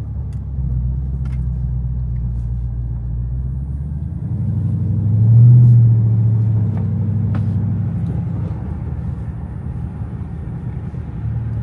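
Car engine running while driving, a steady low rumble that swells louder about five to six seconds in and then settles back.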